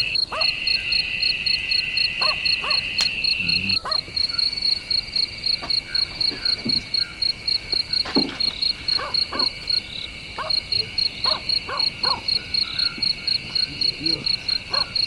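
Night insect chorus: a cricket's rapid, evenly pulsed chirping over a steady, continuous high-pitched trill from other insects.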